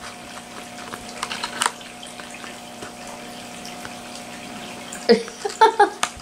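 Light clicks and taps of small plastic toy figures being handled and fitted onto a plastic stand, over a steady low hum. A short voice sound comes near the end.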